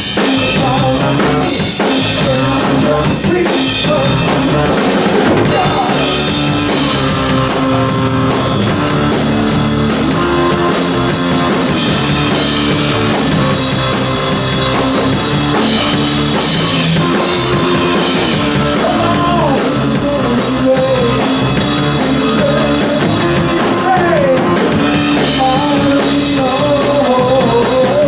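Rock music from a band, with drum kit and guitar, playing steadily and loud.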